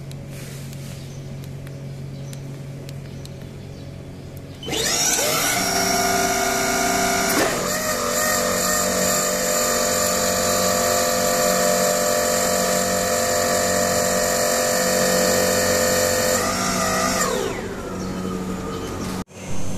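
Electric hydraulic pump motor of a Crown RR 5700-series reach truck starting up with a whine as the mast lifts the forks high for height calibration. It runs steadily for about twelve seconds, its tone shifting once early on, then winds down with a falling pitch. Before it starts there is a low steady hum.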